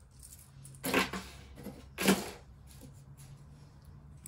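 Costume jewelry being handled, giving two short clacks about a second apart with a few fainter ticks.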